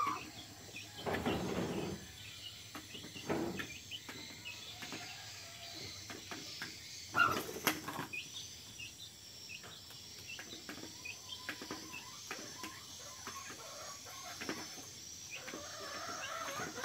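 Domestic hen and chicks foraging: chicks peeping in short high notes throughout, with a few louder rustling bursts, the loudest about seven seconds in.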